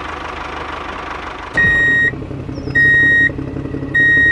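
Toy tractor running with a steady engine sound, then, about one and a half seconds in, three even reversing beeps of about half a second each over a lower hum as it backs up.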